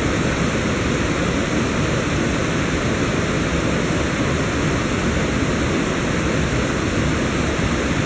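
A fast mountain river rushing through white-water rapids: a steady, unbroken sound of running water.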